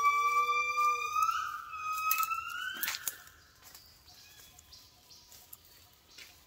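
Southern yellow-cheeked gibbon singing: two long, loud notes, the second rising steadily and ending in a sharp upward sweep about three seconds in. After that only faint forest background remains.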